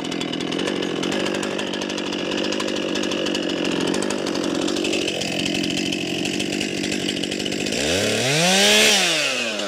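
Stihl chainsaw's two-stroke engine idling steadily, then revved once near the end, rising in pitch and falling back to idle.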